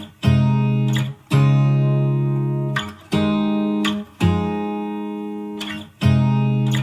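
Background music: guitar chords, each struck and left to ring out, five in a row with short breaks between them.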